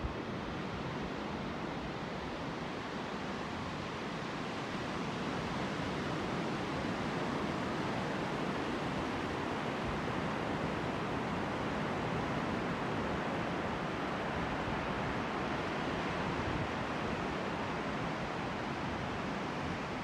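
Pacific Ocean surf breaking on a sandy beach: a steady, continuous rush of waves.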